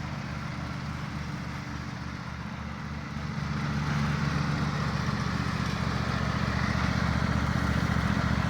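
Riding lawnmower engine running steadily while the mower is driven across the lawn. It grows louder about three and a half seconds in.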